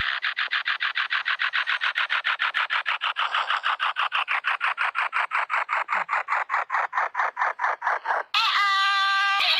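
A talking Teletubbies plush toy's electronic sound making a rapid, even pulsing noise, about eight pulses a second, for about eight seconds. It then breaks into a short, high, held voice sound near the end.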